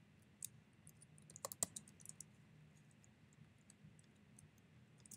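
Faint keystrokes on a computer keyboard: a short, uneven run of soft clicks in the first couple of seconds as a word of code is typed.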